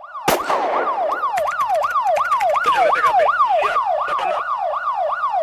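Electronic siren in a fast yelp, its pitch sweeping up and down about three to four times a second. A sharp hit comes at the start and clicking effects are layered over the middle.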